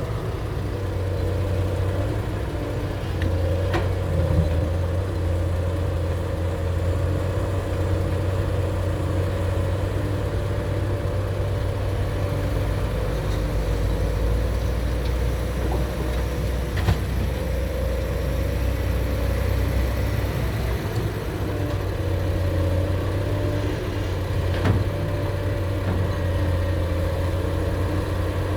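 Excavator's diesel engine running steadily, with three short sharp knocks about 4, 17 and 25 seconds in.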